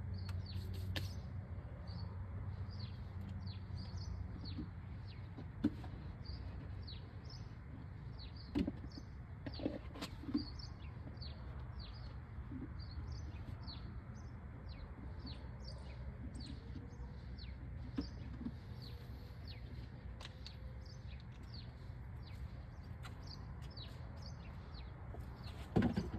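Birds chirping: short, high, downward-sweeping chirps several times a second, over a steady low rumble, with a few faint knocks scattered through.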